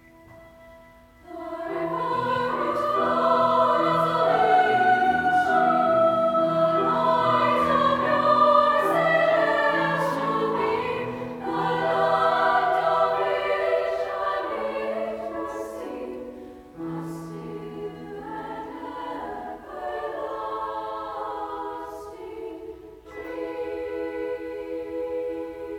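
Treble choir of girls' voices singing in parts, coming in strongly about a second in. Near the end, sustained handbell tones ring under and between the voices.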